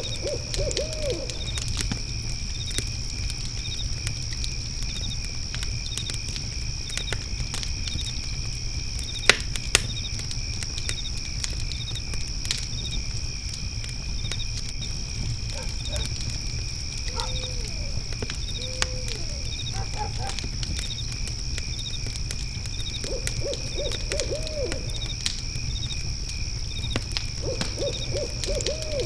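Night ambience of crickets chirring steadily and a fire pit crackling, with two louder pops about nine seconds in. An owl hoots in quick runs near the start, a few single hoots around the middle, and more runs near the end.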